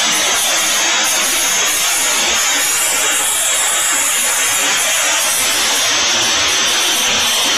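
CNC router spindle running at high speed while its small bit carves a 3D relief into an MDF board: a steady, loud hissing whine of spindle and cutting.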